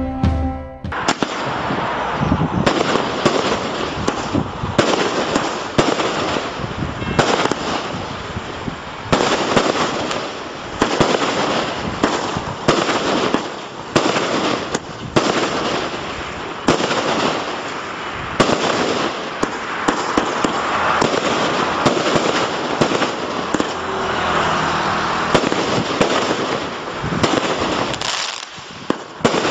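A 36-shot consumer firework barrage cake (Show King) firing: sharp shots about one a second, with a dense, continuous noise from the bursting stars between them. The end of a short music sting is heard in the first second.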